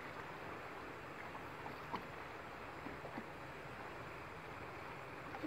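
Steady rush of river water sloshing around people standing waist-deep, with one short tap about two seconds in.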